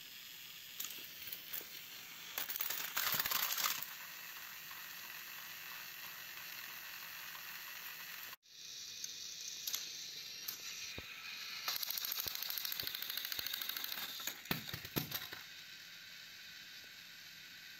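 Battery-powered Thomas & Friends toy trains running, their small motors and plastic gears making a high-pitched whir with rapid ticking and plastic clatter. It is louder about 3 seconds in and again from about 12 to 15 seconds, and breaks off sharply about 8 seconds in.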